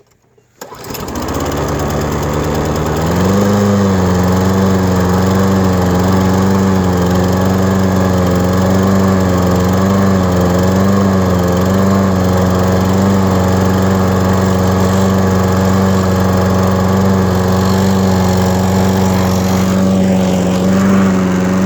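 Toro push mower's small single-cylinder engine starting about a second in, running at a lower speed, then picking up speed at about three seconds and running fast and steady. Its pitch wavers for several seconds after speeding up before settling, on a freshly cleaned carburetor.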